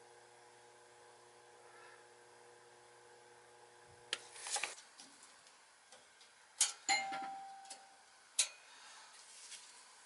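Gas furnace cabinet: a faint steady electrical hum that stops about four and a half seconds in, followed by a few sharp clicks and knocks of hands on the sheet-metal cabinet, one of which rings briefly like struck metal.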